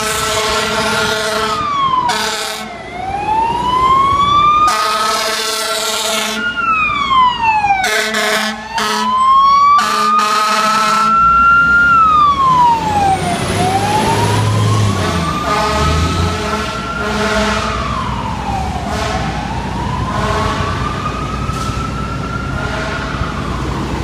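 Fire truck siren wailing on FDNY Rescue 1's heavy rescue truck, rising slowly and dropping quickly about every five and a half seconds, with repeated loud air-horn blasts over the first half. The truck's engine rumbles as it passes close by about halfway through.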